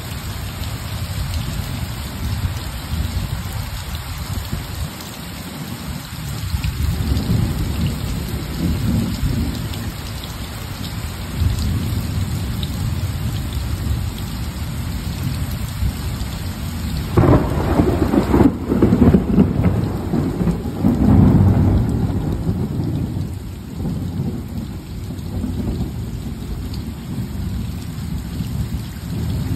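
Steady rain falling with thunder rumbling low. A bit over halfway through, a louder peal of thunder breaks and rumbles on for about five seconds before dying back.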